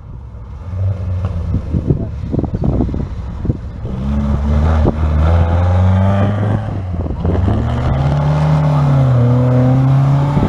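Historic rally cars, Ford Escort Mk2s, driving past one after another at speed, their engines revving hard. The engine note rises and falls in pitch as each car accelerates through and passes.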